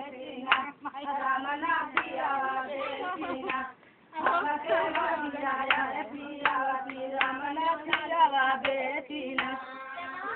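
Women singing with handclaps keeping time, about one clap every three-quarters of a second. The singing breaks off briefly about four seconds in.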